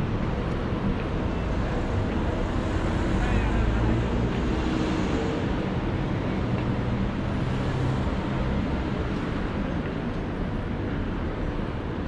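Busy city-street traffic: a steady wash of passing cars with low engine rumble, swelling a little a few seconds in.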